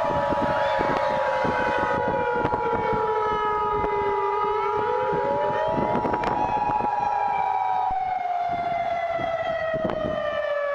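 Civil defense warning siren wailing: its pitch slowly sinks, swings back up about five seconds in, then sinks again. Over it, a steady two-tone alert signal of the Emergency Alert System attention-tone kind sounds until about eight seconds in, then cuts off.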